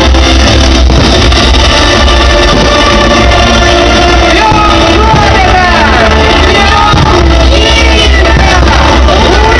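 Loud pop music with a heavy bass line and held notes, joined by a singing voice in gliding phrases about halfway through.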